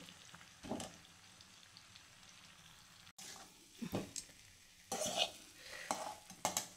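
A metal spatula scrapes and clinks against a metal karahi in a few short strokes as boiled potatoes are stirred into frying masala, with a faint sizzle underneath.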